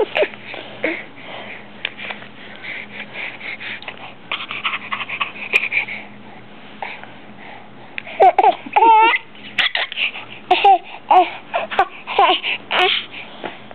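Six-month-old baby babbling: breathy, sputtering noises for the first several seconds, then from about eight seconds in a run of short, high, wavering squeals.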